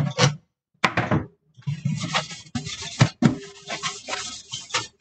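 Cleaning at a stainless steel kitchen sink: a rushing hiss lasting about three seconds from a little under two seconds in, with a few knocks and clatters against the sink.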